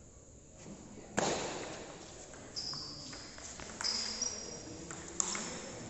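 Table tennis doubles rally: sharp clicks of the ball off bats and table, the loudest about a second in. Short high-pitched squeaks of players' shoes on the hall floor come twice in the middle.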